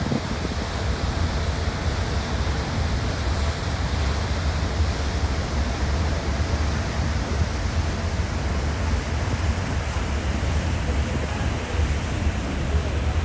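Steady rush of wind and churning wake water behind a large passenger ferry under way, over a low, even rumble.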